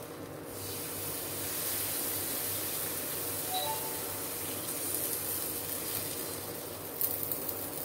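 Besan batter frying in oil on a hot tawa, with a steady sizzle as it is spread with a ladle. A few light clicks come near the end.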